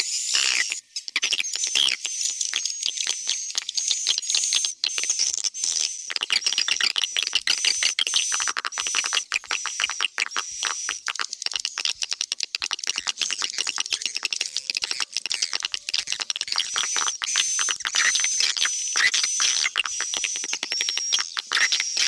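Swiftlet lure-call recording: dense, rapid twittering and clicking of swiftlet calls, the 'tarik' (attraction) and 'inap' (roosting) sounds mixed in stereo, with a thin steady high tone running through it.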